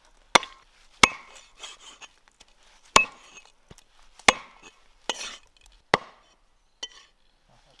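Knife chopping on a cutting board: about five hard, unevenly spaced single strikes, with lighter scraping and knocking between them.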